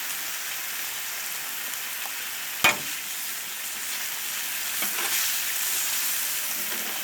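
Food sizzling steadily on a Blackstone flat-top griddle. A sharp metal clack of the spatula striking the griddle plate comes about two and a half seconds in.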